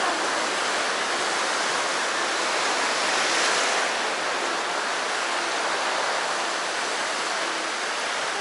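Sea surf washing on the shore, a steady rush of water that swells once about three seconds in as a wave breaks.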